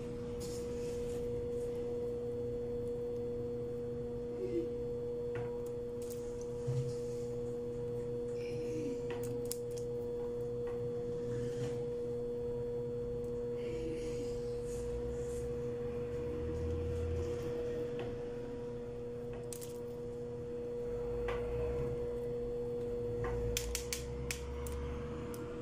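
A steady hum at two pitches throughout. Over it come scattered soft plops and splashes as small raw meatballs are dropped by hand into a pot of boiling broth.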